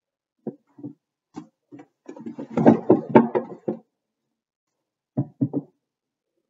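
Books being handled and knocked against a wooden bookshelf as they are pulled out: a few separate knocks, a busier stretch of rustling and bumping about two seconds in, then three quick knocks near the end.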